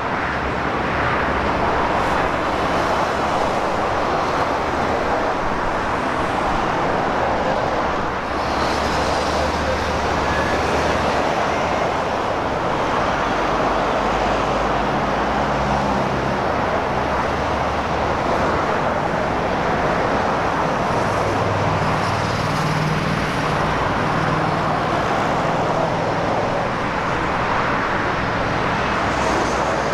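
Steady road traffic noise from a motorway, cars passing one after another.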